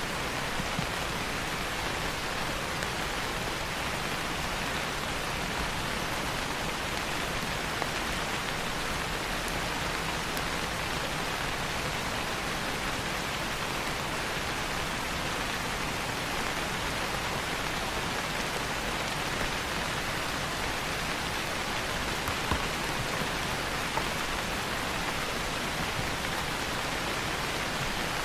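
Steady rain falling, an even hiss with fine drop patter, and a few faint crackles from a wood fire scattered through it.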